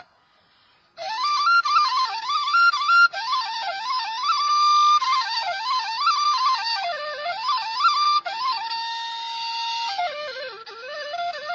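Background music: a flute-like woodwind plays a quick, ornamented melody of rising and falling runs with a few held notes. The music drops out for about a second at the start.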